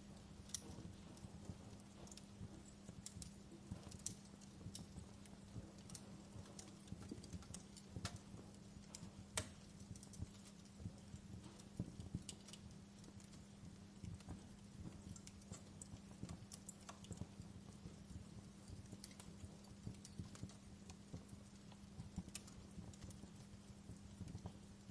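Wood fire crackling in a fireplace: irregular snaps and pops, some sharper than others, over a low steady rumble of the flames and a faint steady hum.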